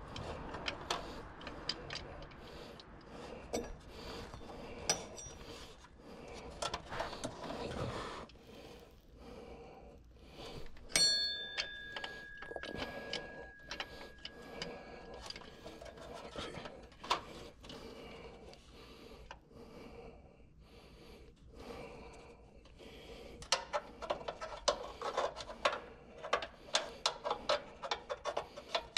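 Metal hand tools working on engine-bay parts: scattered clicks and taps. About eleven seconds in, a metal piece is struck and rings for several seconds. Near the end comes a run of quick clicks.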